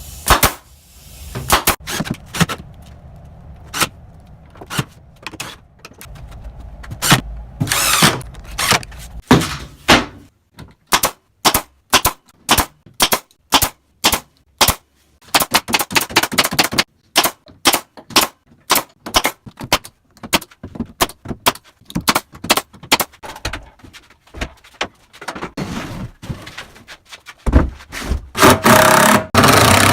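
Workshop tool noise: a fast run of sharp clicks and knocks, several a second, then louder, longer tool noise near the end.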